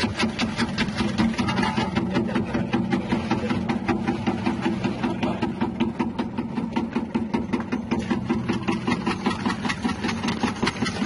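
Electric cassava slicing machine with a 180-watt motor running steadily: a constant hum under a rapid, even clatter from its spinning blade disc cutting cassava into wavy chips.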